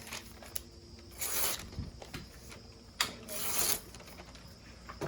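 A small multitool blade dragged through paper in two scraping strokes about two seconds apart, with a sharp click just before the second. The blade cuts poorly and is not very sharp.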